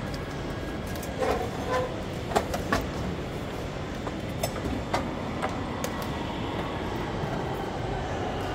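Wooden chess pieces being set down on the board with a handful of sharp, irregular clicks over a steady background rumble of a tournament hall.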